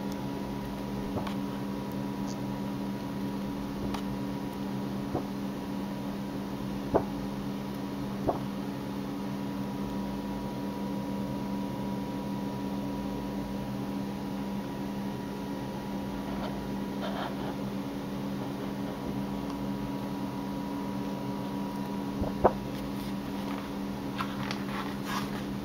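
Steady low hum with a few sharp clicks and short paper rustles from an art book's glossy pages being handled and turned; the clicks come about a third of the way in and again near the end, where the rustling gathers.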